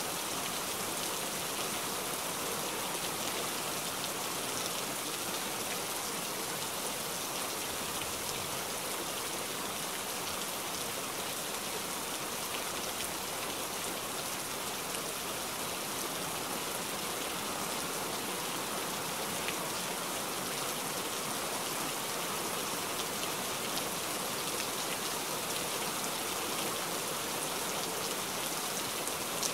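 Heavy rain pouring steadily: a dense, even hiss with scattered ticks of drops.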